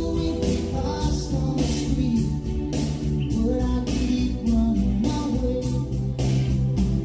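A song with singing and a steady beat, played back through a Yamaha CA-810 stereo integrated amplifier and its speakers.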